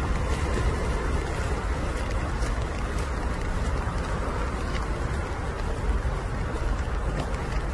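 Steady outdoor background noise: a constant low rumble with a hiss above it and a few faint ticks.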